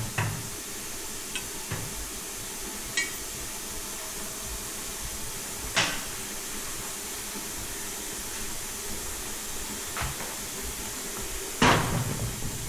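Scattered clinks and knocks of hand tools and metal parts being handled during work on an ATV's battery cables, one with a short metallic ring about 3 s in and a louder clatter near the end, over a steady hiss.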